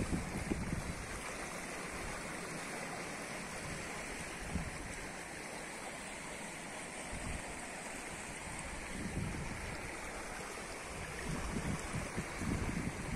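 Shallow stream flowing over a gravel bed, a steady rush of water, with low rumbles of wind on the microphone near the start and again from about nine seconds on.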